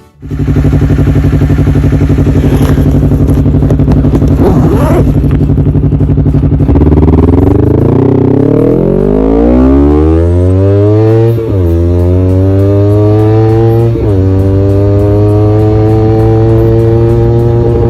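Honda CBR250RR engine through a DX Generation Sphere full exhaust system, running steadily at first, then accelerating with rising pitch and shifting up twice, each shift a sudden drop in pitch before it climbs again.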